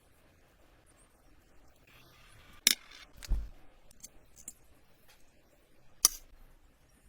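Hands working on small hard parts: two sharp clicks about three seconds apart, a dull thud just after the first, and a few light ticks in between.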